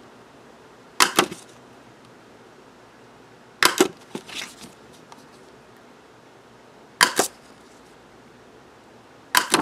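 Handheld single-hole paper punch clacking through cardstock four times, evenly spread, each punch a quick double click. A softer paper rustle follows the second punch.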